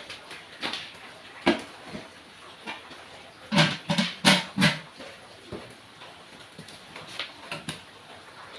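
A large metal cooking pot set down on a wood-fire hearth, with its lid knocking and clanking: a cluster of loud clanks about three and a half to five seconds in, and lighter knocks before and after.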